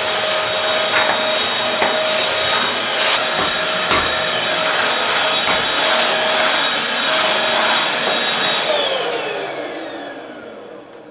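Vacuum cleaner running steadily with a few knocks, then switched off near the end, its motor whine falling in pitch as it spins down.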